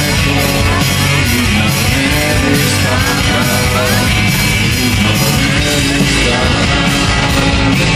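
Live indie rock band playing with a steady beat, electric guitar and a male voice singing.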